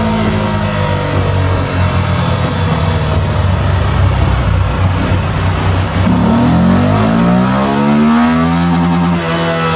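Motorcycle engine running under load on a chassis dynamometer during an engine-oil power test, with rough steady running for about six seconds, then revs that climb and ease off again near the end.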